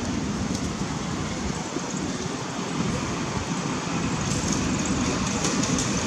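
Steady low rumbling noise, with light crackles coming in during the last couple of seconds.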